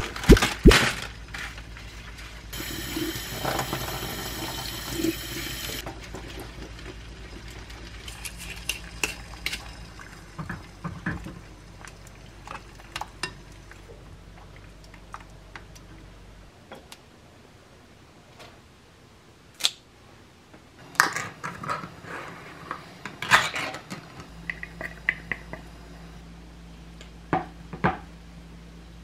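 Kitchen prep sounds: a tap runs into a steel sink for about three seconds while kale is washed, then scattered clinks and knocks of metal tongs on a pot and a spoon against ceramic bowls.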